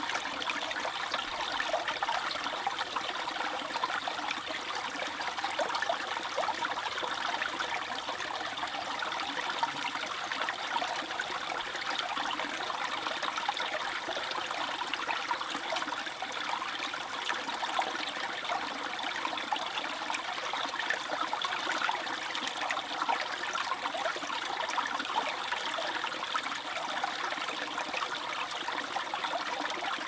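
A small shallow brook babbling steadily over pebbles, a continuous bright trickling and gurgling of water.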